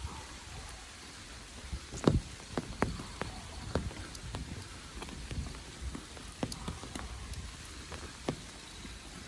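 Rain falling, with large drops striking close by in irregular sharp taps over a steady patter. The loudest tap comes about two seconds in.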